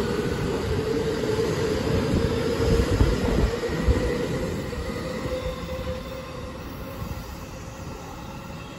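A JR West 225 series and 223 series electric train pulling out and gathering speed past the platform: the wheels and running gear rumble under a steady motor whine, with a few heavy thumps about three to four seconds in. The sound then fades as the last cars draw away.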